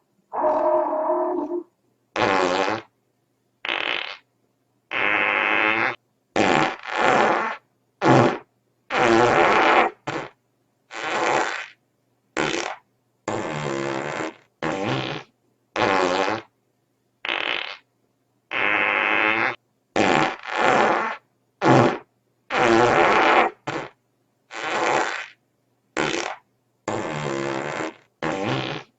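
A run of about two dozen fart sound effects, one after another. Each lasts from a fraction of a second to about a second and a half, with short silences between them.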